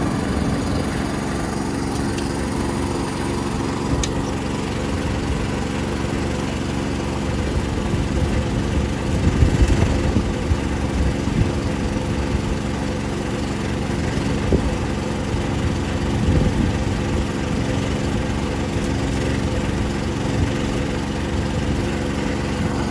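An engine running steadily at a constant speed, swelling slightly about ten seconds in.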